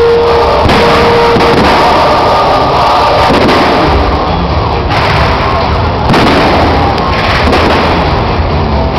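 Aerial fireworks shells bursting over music from loudspeakers. Held musical notes stand out for the first second or so, then several loud bursts in quick succession take over.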